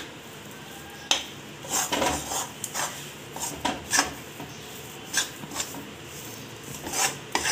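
Metal spatula scraping and clinking against a metal kadhai as gram flour is stirred and roasted in ghee, in irregular strokes about one or two a second.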